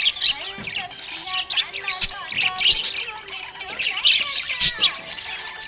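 A group of small pet parrots chirping and chattering, many quick chirps overlapping continuously with a few sharper calls.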